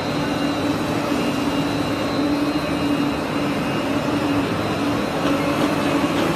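Small steel-coil slitting line for pre-painted galvanized steel (PPGI) running: a steady machine hum with a faint high whine over it.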